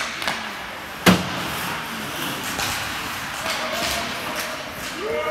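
Ice hockey play in an arena: one sharp, loud bang against the rink boards about a second in, with lighter clacks and scrapes of sticks, puck and skates on the ice.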